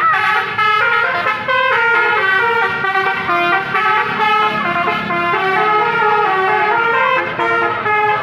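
Bus 'telolet' multi-tone horn playing a melody of quick stepped notes without a break, over a low rumble.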